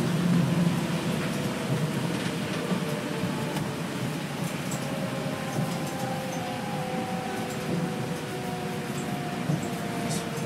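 Inside a New Shuttle rubber-tyred people-mover car running on its guideway: a steady rumble of tyres and running gear, with a whine at a few steady pitches over it.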